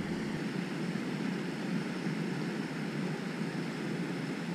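Steady low rumble of outdoor background noise with no distinct events; the deepest part of the hum drops away about half a second in.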